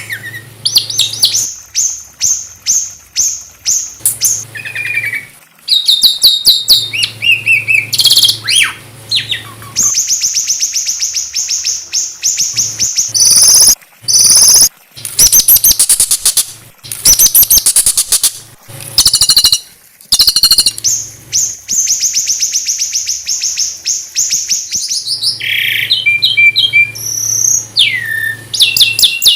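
Small songbirds singing: long phrases of rapid, high trilled notes and sharp chirps, broken by short pauses, with a faint low hum beneath at times.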